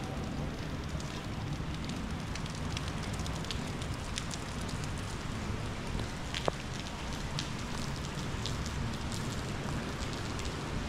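Steady rain with many small drops ticking and pattering on hard surfaces, over a low steady rumble. One sharper tap comes about six and a half seconds in.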